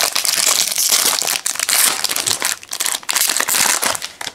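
Plastic wrapper of an NBA Hoops jumbo pack of trading cards crinkling and crackling as it is opened and pulled off the stack of cards; the dense crackle dies away near the end.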